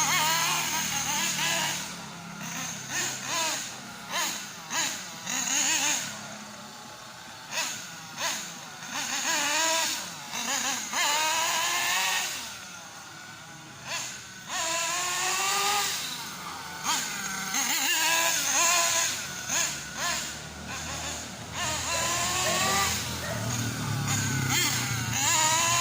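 Two-stroke S.H PT28 nitro glow engine in a 1/8-scale Hongnor X1CR buggy, revved up and down over and over as the buggy drives, its pitch rising and falling with each burst of throttle.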